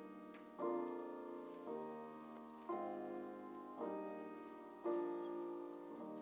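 Solo grand piano playing a slow piece: five chords struck about a second apart, each left to ring and fade before the next.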